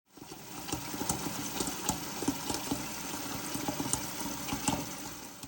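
Water splashing and bubbling, a steady hiss with many small irregular clicks and pops.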